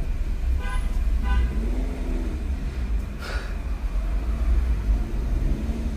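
Steady low engine and road rumble inside a Suzuki car's cabin as it creeps through traffic, the engine note rising and falling gently. Two short horn beeps sound about a second in.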